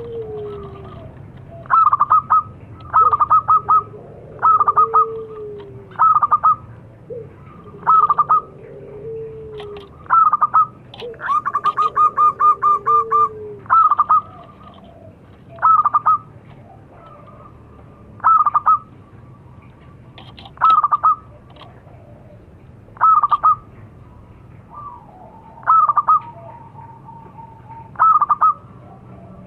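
Zebra dove (perkutut) singing its rapid, staccato cooing phrases, repeated every one to three seconds, with one longer trill about eleven seconds in. Lower drawn-out notes sound between the phrases in the first half.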